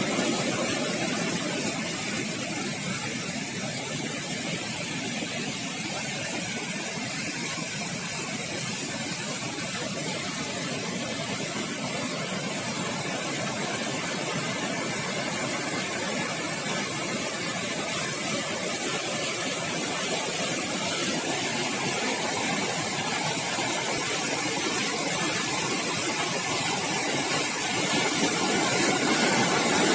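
Steady rush of a river's fast-flowing water, swollen after heavy rain, growing a little louder near the end.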